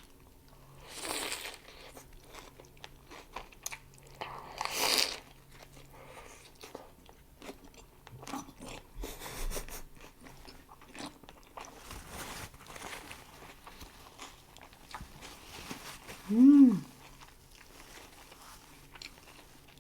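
Close-up eating of a homemade jalapeno Impossible burger: two crunchy bites early on, then steady wet chewing clicks. Near the end comes one short hummed "mmm" that rises and falls, the loudest sound.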